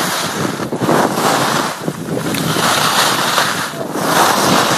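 Wind rushing over a small camcorder's microphone mixed with the hiss of sliding downhill on snow, swelling and easing every second or two.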